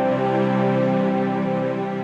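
Background music: soft sustained chords with held notes.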